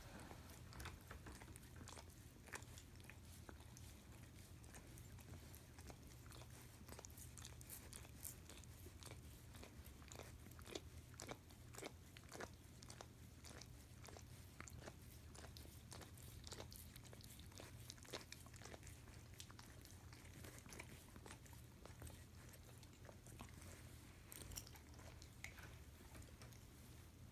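A German Shepherd licking and smacking peanut butter off a spoon: faint, irregular wet clicks of the tongue and jaws, most frequent in the middle stretch, over a low steady hum.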